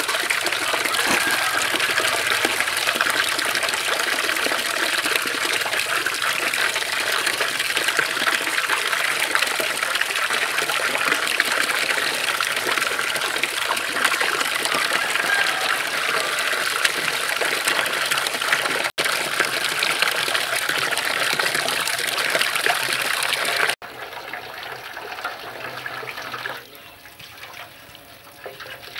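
Tap water pouring and splashing into a large metal basin while two whole plucked chickens are rinsed and rubbed by hand in it. About five seconds before the end the splashing drops abruptly to a much quieter trickle.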